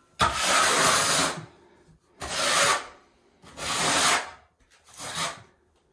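Half-inch square-notch steel trowel scraping and combing thinset mortar across cement board in four rough strokes. The first stroke is the longest, about a second, and the next three are shorter.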